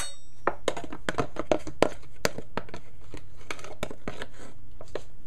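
A metal spoon clinks once against a dish, then irregular crinkling and small clicks as turmeric is handled from its packet, thinning out toward the end.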